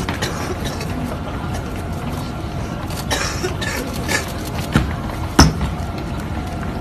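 A young man coughing: a few short, sudden coughs over steady low background noise, the sharpest one about five and a half seconds in.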